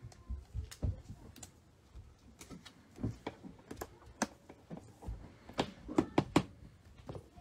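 Irregular light clicks and taps of chrome trading cards being handled and set down on a tabletop.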